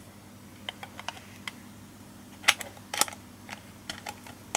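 Plastic pieces of a Raspberry Pi official case clicking and tapping as they are handled and snapped together, with two louder sharp clicks about halfway through.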